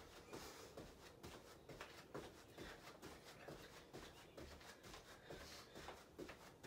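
Faint, soft thuds of sneakered feet landing on a carpeted floor during jumping jacks, about two a second.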